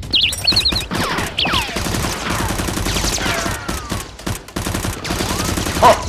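Rapid, continuous bursts of automatic gunfire: a dubbed gun sound effect laid over Nerf blaster play, shot after shot with hardly a gap.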